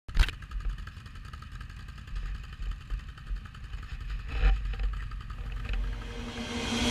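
ATV engines idling: a steady low rumble, with a sharp knock just after the start and a louder bump about four and a half seconds in.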